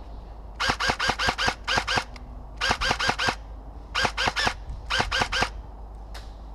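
LCT AKMS airsoft electric gun (AEG) firing several short strings of rapid shots, close by.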